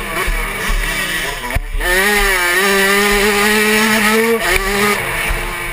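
Suzuki 85cc two-stroke motocross engine running hard under load, its note rising about two seconds in and held high and steady, with a brief break in the sound about one and a half seconds in and short dips near the end, over a steady hiss.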